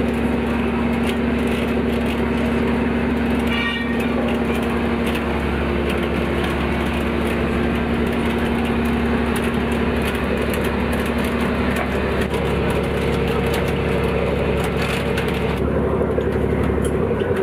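Fishing cutter's trawl winch running with its drum winding the wire warp, a steady mechanical drone over the boat's engine hum, with light clicks and rattles from the wire and gear. The drone shifts in pitch twice in the second half.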